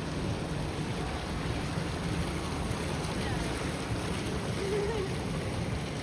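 Steady outdoor city ambience: a continuous low rumble and hiss, with faint distant voices.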